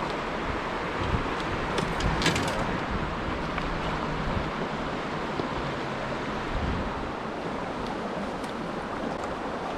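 Steady rush of flowing river water with some wind on the microphone, and a few faint ticks about two seconds in.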